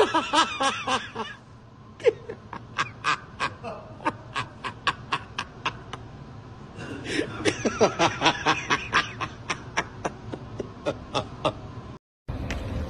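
A person laughing hard and without words, in breathless bursts, with a long run of short, rapid gasping pulses about three a second between two stronger fits. It breaks off near the end.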